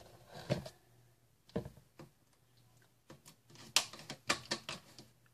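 Slime being kneaded and pulled by hand close to the microphone, giving irregular sharp wet clicks and small pops, most of them clustered in the second half.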